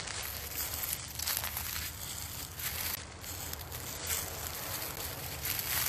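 Footsteps crunching and rustling through dry leaf litter, an uneven run of steps.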